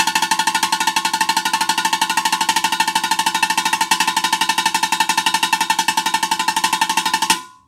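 Drumsticks playing a fast, even roll on an improvised bucket-drum snare, the higher-pitched, faster-played part of a homemade drum set, with a ringing clatter to each stroke. The roll stops suddenly near the end.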